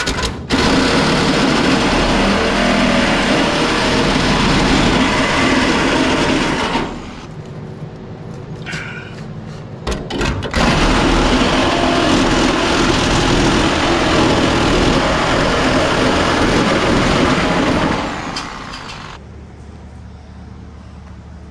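Reciprocating saw cutting through the sheet-steel quarter panel of a 1971 Chevy K5 Blazer at the door jamb. It runs in two long cuts, of about six and about seven seconds, with a short pause between, then stops near the end.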